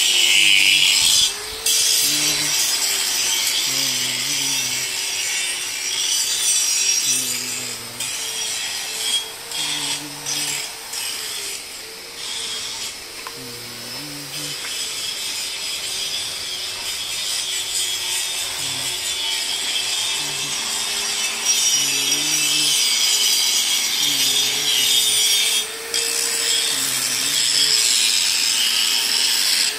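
Angle grinder grinding steel: a dense, hissing grind over the motor's whine, which wavers as the load changes. The grind breaks off for a moment about a second and a half in, and again near the end.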